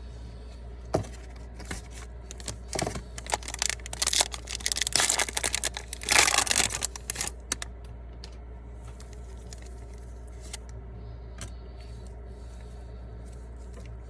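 A trading-card pack wrapper being torn open and crinkled, with clicks from handling the cards. The crinkling is loudest a little past the middle, then stops, leaving a steady low hum.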